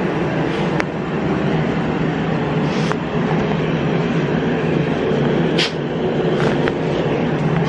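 A steady mechanical drone with a low hum, holding level throughout, with a few faint short ticks over it.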